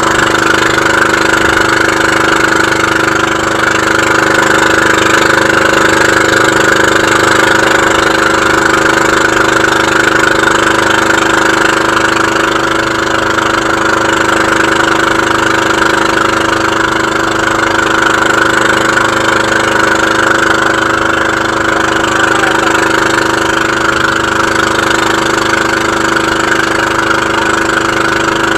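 Motorized outrigger boat's engine running steadily under way, with water rushing along the hull.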